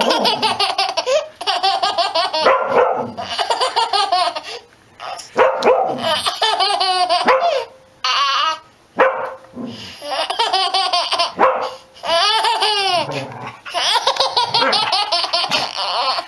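A baby laughing hard in long fits, with a golden retriever barking now and then between them.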